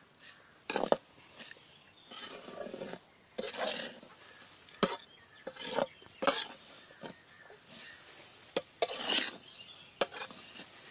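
Flat metal spatula stirring and scraping dry-roasting ragi flour around an aluminium kadai, in irregular scraping strokes broken by a few sharp knocks of the spatula on the pan.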